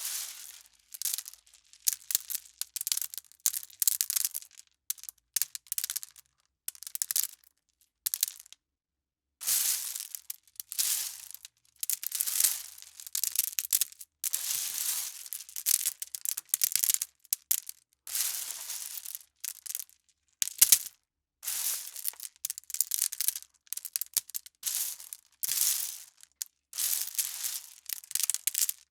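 Foley of small stones falling, a long series of separate drops, each a short rattling spill of pebbles separated by brief pauses.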